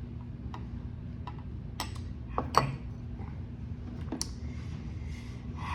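Chopsticks clicking and tapping against a bowl in about six separate sharp clicks, the loudest about two and a half seconds in, over a steady low hum.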